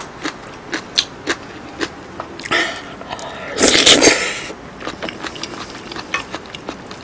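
Close-miked eating sounds: wet mouth clicks while scooping curry rice with a wooden spoon, then a loud slurp about four seconds in as a spoonful goes into the mouth.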